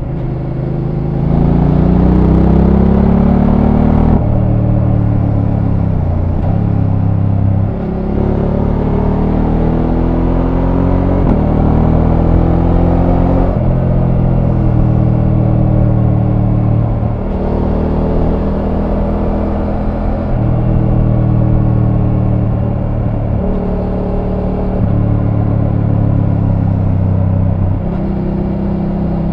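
Voge 900 DSX motorcycle's parallel-twin engine through its stock exhaust, running loud and steady, its pitch repeatedly climbing and then dropping back every few seconds.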